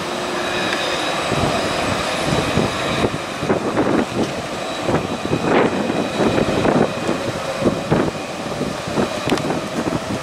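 Electric tram passing, with a thin steady high whine over a rough running noise. Irregular gusts of wind buffet the microphone from about a second and a half in.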